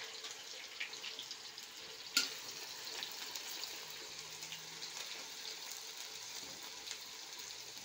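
Sliced onions sizzling steadily in hot oil in a large iron kadai as they are stirred with a metal slotted spoon, with one sharp knock of the spoon about two seconds in.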